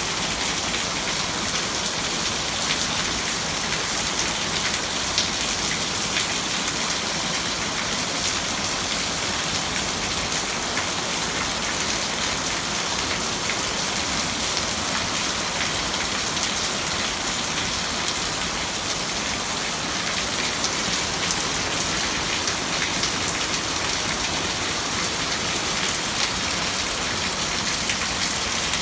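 Heavy rain pouring steadily, with a dense patter of drops hitting surfaces.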